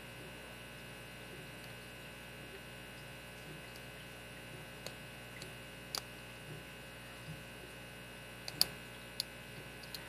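Scattered faint clicks and ticks of a lock pick working the pins of a vintage Soviet pin tumbler padlock under tension, the sharpest few near the end, over a steady low hum.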